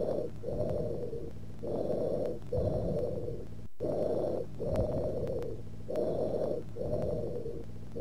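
Recorded tubular bronchial breath sounds heard through a stethoscope: harsh, high-pitched breathing, about four breaths, each with a short pause between inspiration and expiration and an expiration as long as or longer and louder than the inspiration. It is the sign of solidified lung with open bronchi, heard classically in lobar pneumonia.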